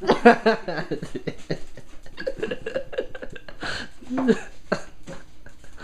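Scattered knocks and shuffles as a small wooden stool is shifted and stood on over a wooden floor, under brief indistinct talk.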